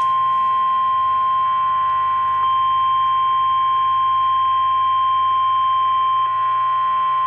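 NOAA Weather Radio 1050 Hz warning alarm tone: a single loud, steady, high-pitched tone that starts abruptly and holds without change. It signals that a warning-level alert, here a severe thunderstorm warning, is about to be read.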